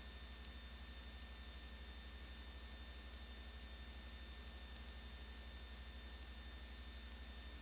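Steady low electrical hum with faint hiss and a thin high whine from a blank stretch of videotape playing back, with no other sound.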